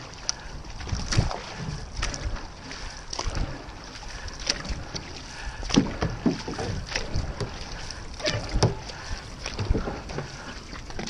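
Paddles of a six-person outrigger canoe dipping and pulling through the water in a steady rhythm, a splash about every second and a quarter, with wind on the microphone.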